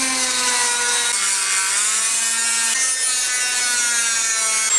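Rotary tool with a cutoff wheel running at high speed and cutting into a plastic fuel pump housing part, a steady whine over a grinding hiss. The whine drops in pitch about a second in and rises a little near three seconds.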